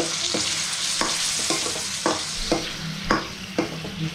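Chicken liver, onion and garlic sizzling in soy sauce in a stainless steel wok while a metal spoon stirs them, the spoon scraping and knocking against the pan about twice a second.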